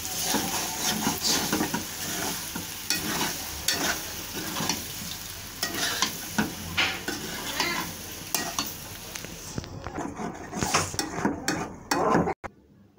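Penne in tomato sauce sizzling in a metal pan while a metal spoon stirs and scrapes through it in quick, repeated strokes. The sizzle dies down about ten seconds in while the stirring goes on.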